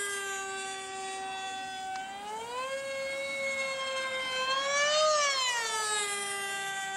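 Radio-controlled model airplane flying overhead, its motor and propeller giving a steady whine. The pitch rises about two seconds in, peaks around five seconds, then drops as the plane passes.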